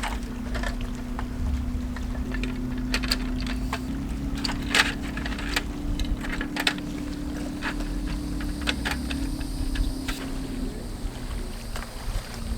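A boat motor running with a steady hum that steps up slightly in pitch about four seconds in and drops away near the end, with low wind rumble and scattered sharp knocks.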